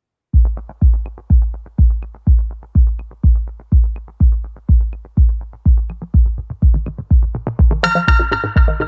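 Electronic background music: a heavy drum-machine kick on every beat, about two a second, with light ticks between, and a bright synth chord coming in near the end.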